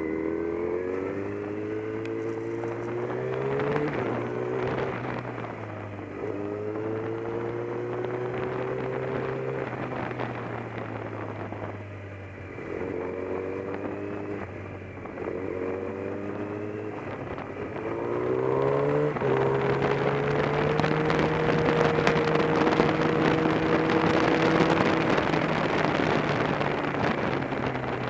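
Motorcycle engine pulling hard, its pitch climbing and then dropping back with each gear change several times over. About two-thirds of the way in it settles at a steadier pitch while loud rushing wind noise builds over it.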